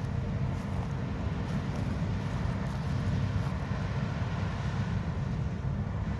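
Steady low rumble of a combine harvester running.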